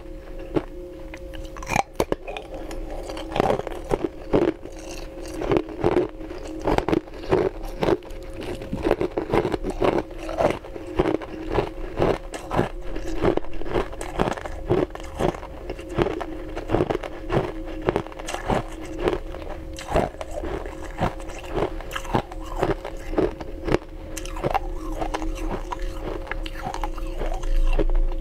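Ring-shaped pieces of ice bitten and chewed close to the microphone: sharp, irregular cracking crunches, about two a second, over a steady low hum.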